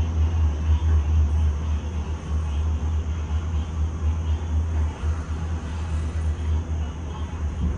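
Gondola lift cabin in motion along its cable: a steady low rumble that wavers in strength, over an even hiss.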